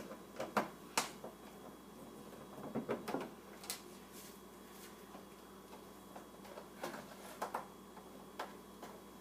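Scattered light clicks and taps from hand work on a flat-screen TV: screws and small plastic parts being handled as the set is taken apart. The taps come singly and in short clusters, the busiest about three seconds in and again around seven to eight seconds.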